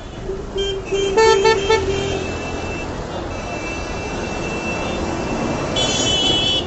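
Heavy city street traffic with engines running, punctuated by several short horn toots about a second in and another higher-pitched horn blast near the end. A bus passes close by as the traffic noise swells.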